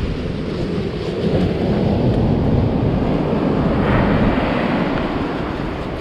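Wind buffeting the microphone over the wash of surf breaking on a sandy beach: a steady, low rushing noise.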